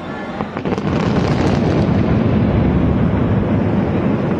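Aerial fireworks going off in a dense, continuous barrage of crackles and bursts, growing louder about a second in.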